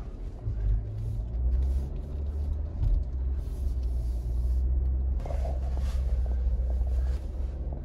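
Ineos Grenadier SUV driving along a rutted dirt trail, heard from inside the cabin: a steady low rumble from its BMW inline-six engine and drivetrain, with a few faint clicks or rattles about five seconds in.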